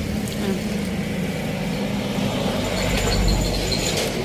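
Road vehicle engine running steadily, with a low rumble that grows louder about three seconds in.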